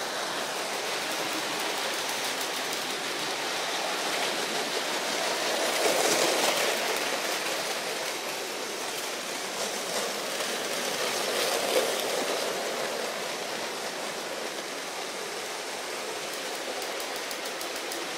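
Several motorised Lego trains running on plastic track: a steady rolling rattle and motor whir, swelling twice as trains pass close by.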